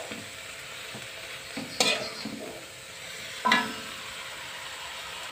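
Boiled cassava leaves sizzling as they are stir-fried in a metal wok. A metal spatula clatters against the pan twice, about two seconds and three and a half seconds in.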